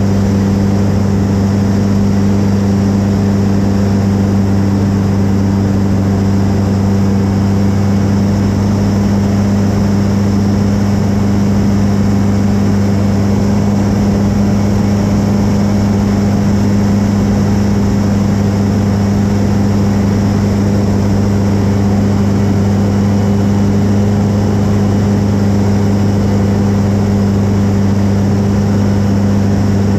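Pitts S-1C biplane's piston engine and propeller running at steady high power, heard from inside the cockpit as an unbroken, constant-pitch drone.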